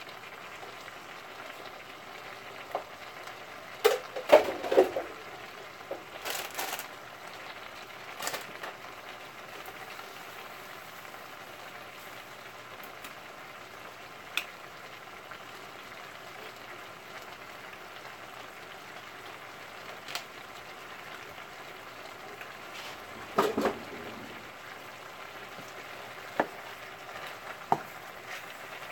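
Chicken, shrimp and peppers sizzling steadily in a hot wok, with a few sharp clacks and knocks of a wooden spoon against the wok as the stir-fry is tossed.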